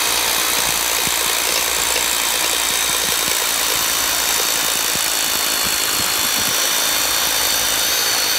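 Classic CLA-5426 1010 W rotary hammer drill running under load, hammer-drilling a long 14 mm bit through a wall. It makes a steady motor whine over dense rattling impacts, and the whine rises slightly in pitch near the end.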